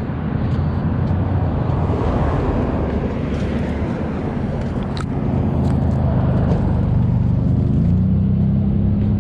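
An engine running steadily nearby, its pitch rising a little about eight seconds in, with a single sharp click about five seconds in.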